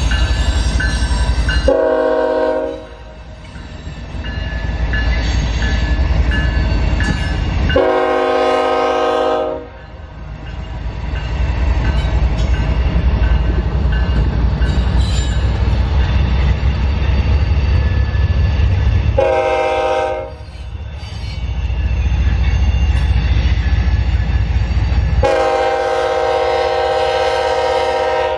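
Air horn of a CSX diesel locomotive sounding four blasts in the long, long, short, long pattern of a grade crossing signal, the last blast held for over three seconds. Between the blasts, the low rumble of the locomotives' diesel engines and the train rolling past.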